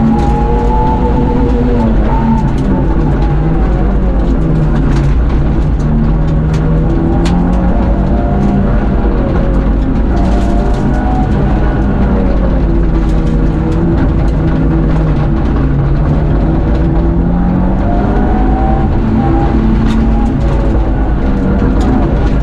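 Rally car engine heard loud from inside the cabin at stage pace. Its note repeatedly climbs and drops as the car accelerates, shifts and slows for corners, over steady road and drivetrain noise, with scattered sharp clicks.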